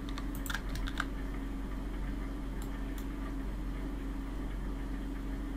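A handful of sharp clicks from a computer keyboard and mouse being worked, most of them in the first second, over a steady low hum.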